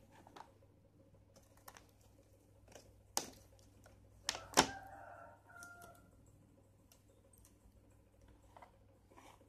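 Quiet handling of packaging: scattered light taps and clicks of a plastic tray and cardboard box on a wooden table, with a sharper pair of knocks about four and a half seconds in.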